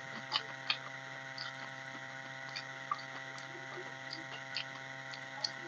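Faint, scattered wet clicks of fingers mixing mashed rice and potato against a steel plate, over a steady electrical hum.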